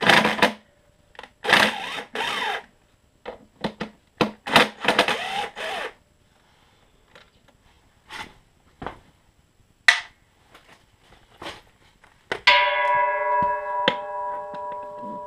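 Cordless drill backing out 8 mm bolts in three short runs, its motor speed wavering, with small clicks and knocks of handling in between. About twelve seconds in, a metal object is struck and rings on with a bell-like tone that slowly fades.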